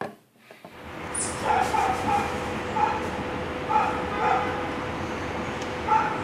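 A dog barking in short, repeated yips every half second to a second, starting about a second in, over steady background noise.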